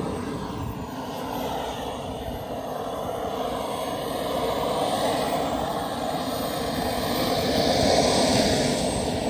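JetCat 180 turbine of a large radio-controlled L-39 model jet running, a steady jet rush that grows louder to a peak about eight seconds in, then eases slightly.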